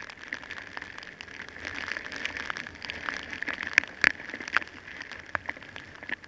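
Heavy rain, its drops striking the camera in many sharp, irregular ticks over a steady hiss.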